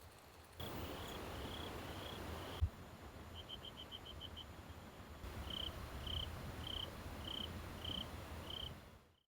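Cricket chirping, repeated short chirps about two a second with a quicker trill of chirps about three seconds in, over a steady hiss. A single thump about two and a half seconds in.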